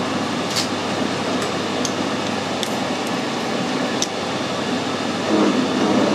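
Metal lathe running slowly with a machine reamer being fed into a one-inch bore, a steady mechanical hum with a few light ticks. A little before the end the sound grows louder and fuller as the reamer cuts.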